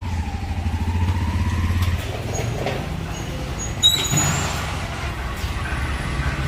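Motor vehicle engine running close by, a steady low rumble that is strongest in the first two seconds, with a short click about four seconds in.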